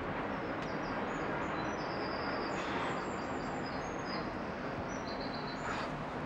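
A small bird singing a string of short, high chirps over a steady background hiss.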